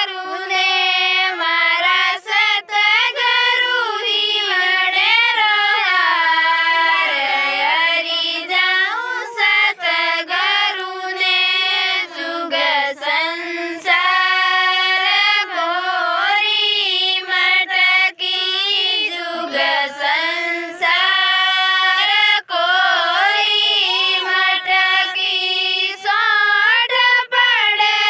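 A woman singing a Rajasthani devotional bhajan solo in a high voice, with no instruments, in long held lines that slide and waver in pitch, pausing briefly for breath.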